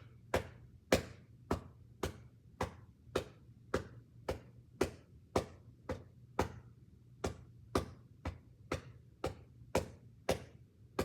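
Chest percussion: a handheld percussion cup clapped against the side of the chest in a steady rhythm, about two strikes a second, to loosen mucus in the right middle lobe during postural drainage.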